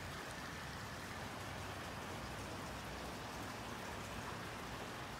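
Steady hiss of freezing rain (ice rain) falling on wet pavement, with faint scattered ticks.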